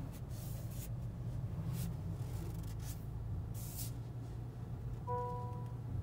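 Steady low hum inside an idling Honda Accord's cabin, with several short rustling hisses of handling noise. One electronic chime sounds about five seconds in and lasts under a second.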